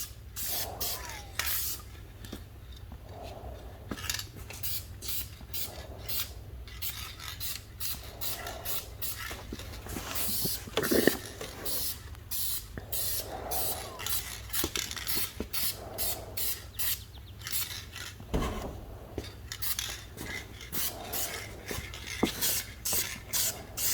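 Aerosol spray-paint can spraying a candy coat onto a car's paint in many short, hissing bursts.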